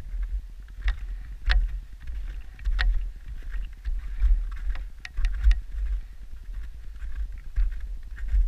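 Wind buffeting the microphone in gusts, with a few sharp clicks or crunches over it, the clearest about a second and a half and three seconds in and a few more around five seconds.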